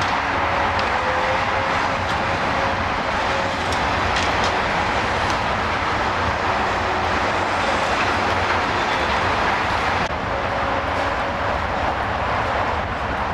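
Steady, noisy mechanical roar of heavy machinery, with a few faint knocks; the roar drops a little about ten seconds in.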